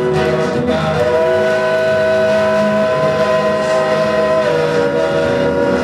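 Live band music: a sustained chord of long-held notes from the band's guitar and keyboard rig, shifting to lower notes about four and a half seconds in.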